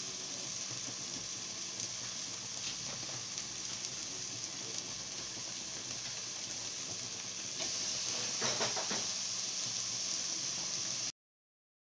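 Stuffed beef intestine sizzling as it sears in a hot pot, a steady hiss that swells a little about two-thirds of the way through as a second piece goes in, with a few light clicks. The sound cuts off abruptly about a second before the end.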